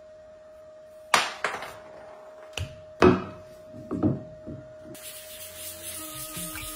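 Several sharp knocks and clunks as a turned resin-and-pine-cone vase and its chuck insert are handled at the lathe, the loudest about three seconds in, over a steady hum. Music fades in near the end.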